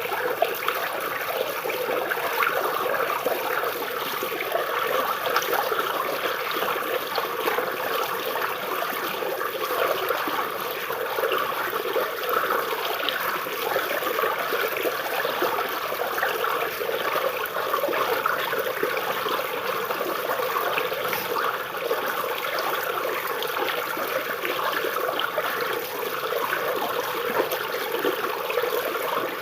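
Small river or stream water flowing and babbling steadily beneath tree roots.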